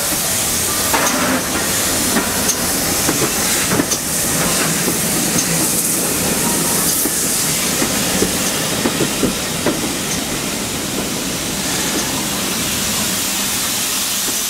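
Steam train running close alongside: GWR Manor-class 4-6-0 No. 7820 hissing steam while its wheels and coaches knock and clatter over the rails. The knocks thin out near the end, leaving a steadier hiss.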